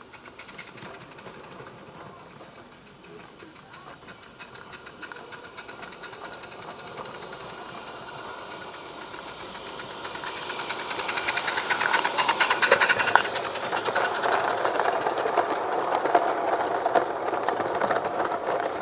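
Small live-steam garden-railway locomotive chuffing quickly as it runs toward the track and passes close by, with the clatter of its train rolling on the rails. The fast, even beat grows louder, is loudest about two-thirds of the way in as the engine goes past, and stays loud while the wagons roll by.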